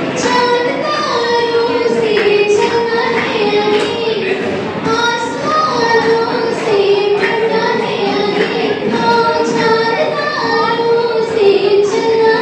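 A woman singing a slow song solo into a microphone, holding long high notes and sliding between them.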